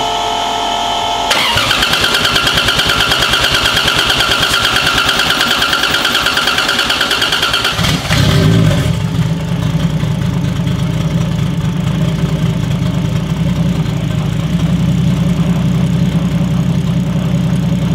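Freshly built Toyota 1.5JZ inline-six (1JZ head on a 2JZ block) started for the first time. After a short steady whine, the starter cranks it with an even rapid chug for about six seconds. The engine catches about eight seconds in and settles into a steady cold idle, which the builder reads as running a little lean.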